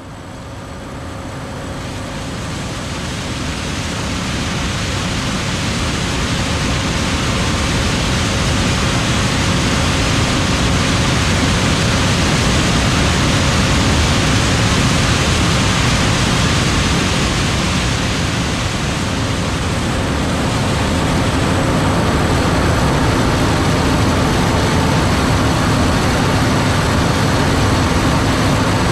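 John Deere S7 800 combine, with its 13.6-litre PowerTech diesel, running while harvesting corn: a steady, dense rush of machine noise with a few faint steady tones. It grows louder over the first several seconds, then holds.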